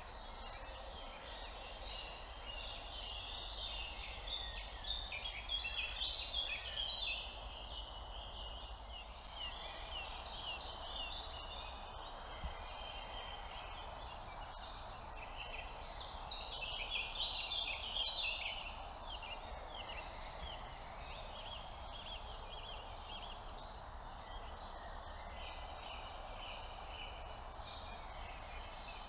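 Many songbirds singing and chirping at once in a dense, overlapping chorus of short high calls and trills, over a steady background noise.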